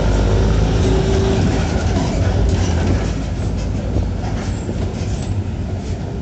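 Mercedes-Benz OF-1418 bus's six-cylinder turbo-diesel and exhaust pulling under load with a strong low drone, its note dropping away about a second in. After that a steady rumble runs on, with a rapid run of rattling clicks over it in the second half.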